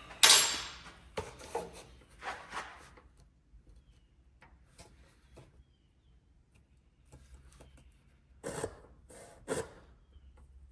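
Scraping and rubbing of the chop saw's metal vise being shifted and set by hand: a loud scrape at the start and a few more over the next couple of seconds, then two short scrapes near the end.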